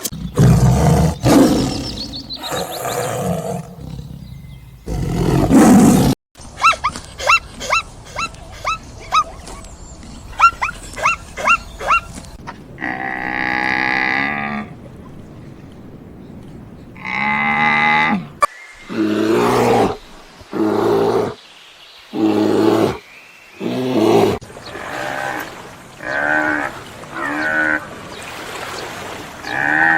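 A run of different animal calls, one kind after another. Rough roars come in the first few seconds, then a stretch of quick high chirps. After that there is a long pitched call, then a string of shorter pitched calls.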